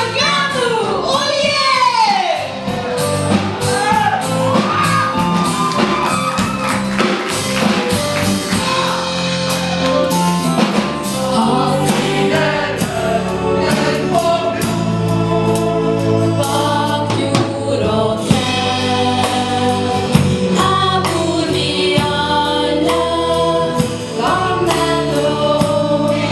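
A group of singers, mostly women, singing a song together into microphones, with musical backing underneath.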